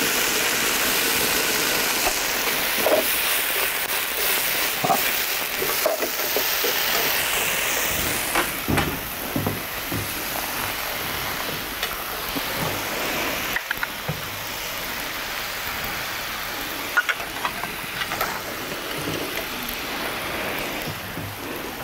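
Food frying in hot oil: a steady sizzle, louder for the first several seconds, with scattered clinks and scrapes of a metal ladle against the pan.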